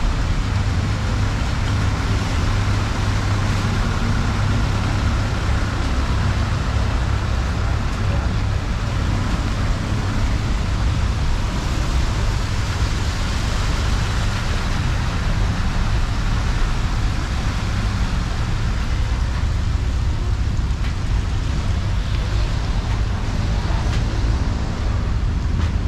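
Steady street traffic noise: a constant low engine hum under an even hiss, with no pauses or sharp sounds.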